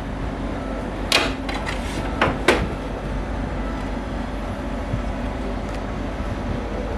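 Carrier split-type air conditioner's indoor unit running with a steady hum, while its plastic front panel is opened, giving a few clicks and knocks about a second in and again around two and a half seconds in.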